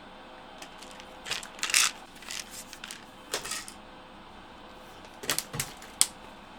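A plastic medicine bottle and a water bottle being handled, taking sleeping medication: clicks and rattles in three short clusters, with a sharp click near the end.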